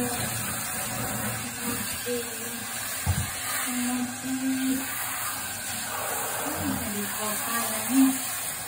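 A handheld shower sprays water steadily over a wet cat's fur in a bathtub. Short low voice sounds come every second or two.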